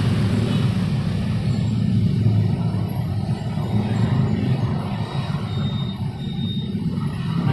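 Road traffic on a city street: a steady low rumble of motor vehicle engines and tyres.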